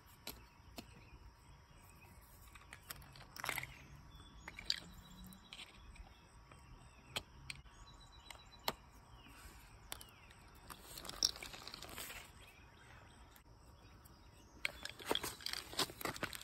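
Faint scattered clicks and rustling of small plastic fuel-pump parts being handled, with denser bursts of crackling about eleven seconds in and again near the end.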